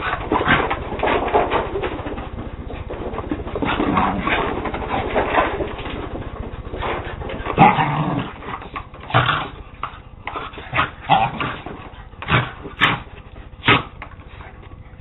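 A West Highland White Terrier and a Scottish Terrier playing, with dog vocalisations throughout: a dense stretch of noise in the first half, then a string of short sharp yips and barks from about halfway through.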